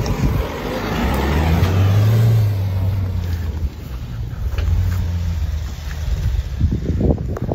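Mahindra Thar's engine revving as the SUV accelerates and drifts across loose dirt, its note loudest about two seconds in and easing off after that. Wind buffets the microphone near the end.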